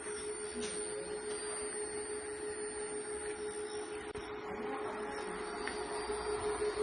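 Mitsubishi servo motor running steadily on the test bench, a constant electric whine with a faint high tone above it, growing slightly louder near the end.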